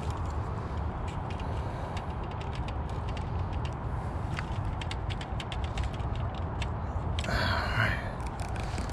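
Light stand being handled and adjusted: many small clicks and ticks from its fittings over a steady low rumble of wind on the microphone, with a brief rush of noise near the end.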